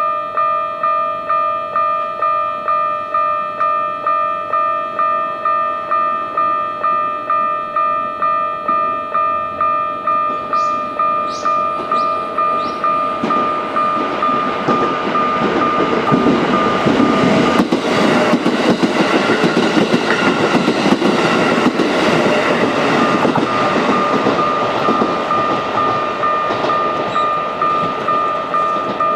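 Japanese level-crossing warning bell ringing 'kan-kan' in a steady, even rhythm while an electric train runs past. The train's rumble builds from about halfway through, drowns out the bell for several seconds, then fades, leaving the bell still ringing.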